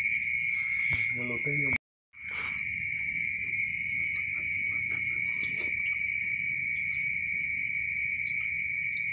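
Crickets trilling on one steady high note, with a moment of dead silence about two seconds in.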